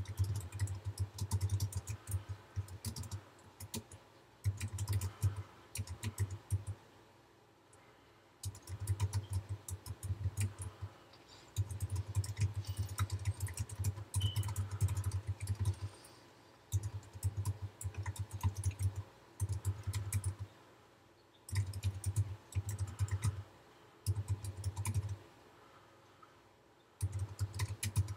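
Typing on a computer keyboard in bursts of one to two seconds with short pauses between. Each run of keystrokes is a quick patter of sharp clicks over a dull low knock.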